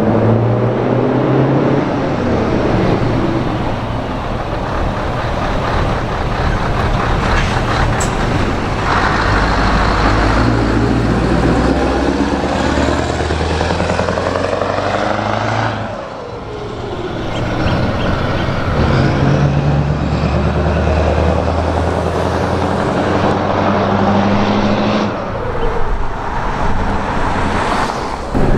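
Scania 164G 580 V8 diesel truck with open exhaust pipes under load, passing close by. The engine note rises and falls in pitch several times, with a brief dip in level about halfway through.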